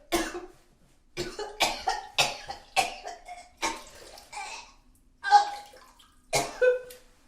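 A person retching and vomiting: a series of about ten harsh heaves, each starting abruptly and trailing off, some with the voice coming through.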